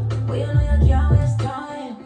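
Music track cutting in abruptly, with a deep, heavy bass line whose notes slide downward.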